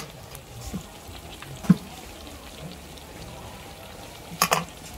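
Oil sizzling steadily in a kadhai of frying pakoras. There is a sharp knock a little under two seconds in and a quick double knock near the end.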